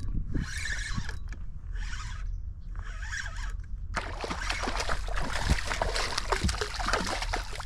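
Spinning reel cranked in four short bursts about a second apart, retrieving the lure with pauses. Then, about halfway through, a denser crackling noise with small clicks sets in.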